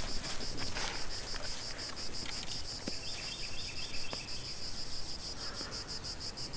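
Steady insect-like chirping: a high, even pulse repeating several times a second without a break. A few faint knocks sound over it.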